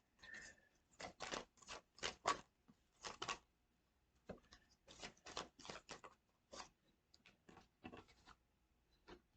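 Tarot cards being shuffled by hand: a faint run of short papery flicks and shuffles in bursts, with brief pauses between them.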